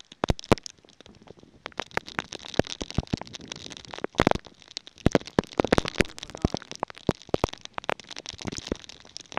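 Heavy rain, a steady hiss, with drops striking close to the microphone in many irregular sharp cracks and pops.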